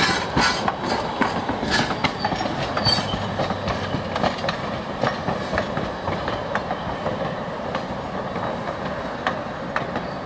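Empty skeleton log cars rolling past, their wheels clicking and clanking over the rail joints in an irregular clatter over a steady rumble; the knocks are thickest in the first few seconds and grow softer and sparser toward the end.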